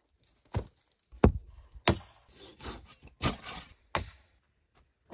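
Woodworking on logs: four heavy knocks and thuds, the loudest a little over a second in, with stretches of scraping between them.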